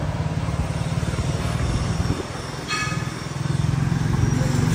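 Small motorcycle engine running at low road speed, a fast steady pulsing that eases off briefly about two seconds in. A short high beep sounds near the middle.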